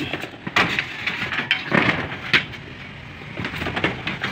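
Corrugated galvanized iron roofing sheet being handled and stepped on: a few scattered knocks and rattles of the thin metal.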